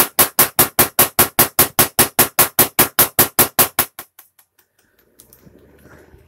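Solid-state Tesla coil firing its spark discharge in short, loud cracking pulses at about five a second, which stop about four seconds in after a few fainter ticks.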